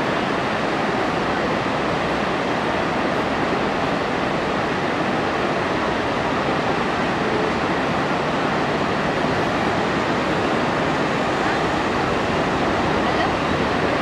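Steady rushing of river water pouring over a low weir: a loud, even hiss with no breaks.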